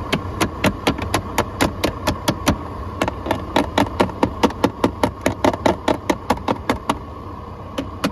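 2008 Mazda CX-9 heater blower motor running with a fast, regular clicking, about four clicks a second, over a steady whine. This is the noise of the worn-out blower motor that is about to be replaced.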